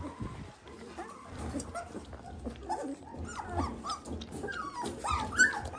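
22-day-old Dalmatian puppies squeaking and whimpering: many short high squeaks that come thicker in the second half.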